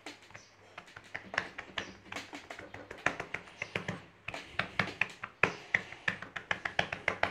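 Hands patting and pressing soft potato bread dough flat on a floured metal tray: a quick run of soft taps, several a second, growing busier after about a second.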